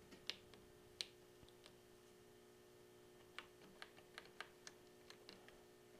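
Keys on a Tandy TRS-80 Model 100 keyboard clicking as they are pressed: a few single presses in the first second or so, then a quicker run of presses from about halfway through.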